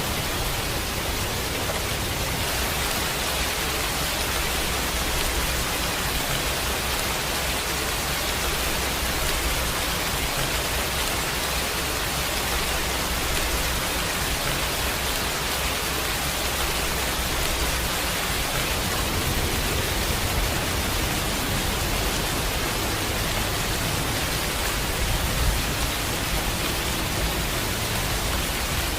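Steady, even hiss of heavy rain, with no let-up and a brief slightly louder moment about 25 seconds in.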